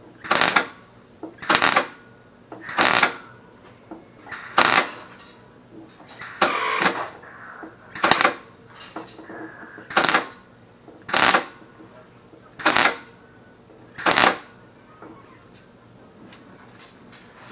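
Welder laying a run of short tack welds on a sheet-steel fender patch: about ten brief bursts, each under half a second, a second or so apart, with one slightly longer near the middle and none in the last few seconds.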